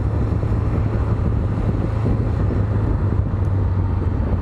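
Honda CB500X's parallel-twin engine running steadily at a constant speed, with wind noise on the microphone.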